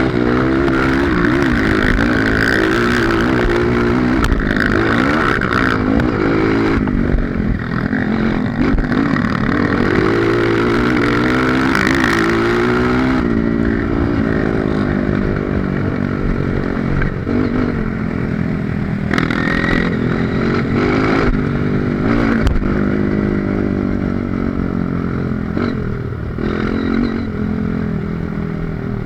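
Honda CRF230 dirt bike's single-cylinder four-stroke engine running, its pitch rising and falling as the throttle opens and closes, with occasional knocks and rattles.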